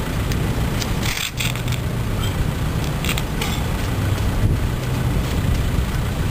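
Steady low outdoor rumble of wind and road traffic on the camera microphone, with a few short knocks and scrapes, the loudest about a second in.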